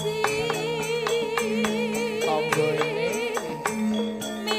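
A female Javanese sinden sings a long, wavering line with vibrato over gamelan accompaniment, with sustained metallophone tones and steady strokes of the kendang drum.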